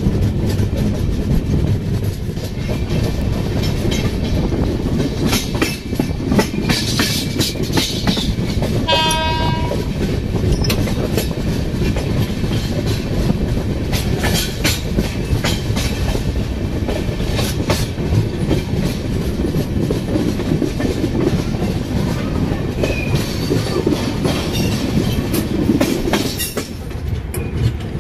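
Express passenger train running along the track: a steady rumble with the repeated clack of wheels over rail joints, and one short horn blast about nine seconds in.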